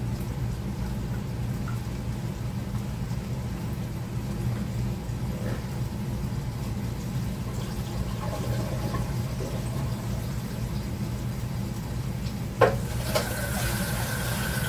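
Steady low hum, then a sharp knock about three-quarters of the way through, after which a kitchen faucet starts running water into a pot of rice to rinse it.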